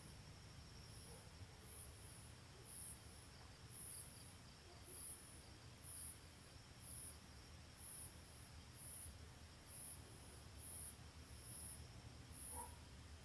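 Faint, high-pitched insect chirping, a short chirp a little more than once a second at a steady pace, over a low steady hum.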